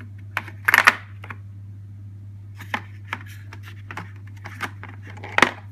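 Chrome vanadium sockets and bit sockets clicking and clattering against each other and the moulded plastic case as they are lifted out and set back into their slots. There is a quick run of clicks about a second in, scattered single clicks after that, and a louder knock near the end.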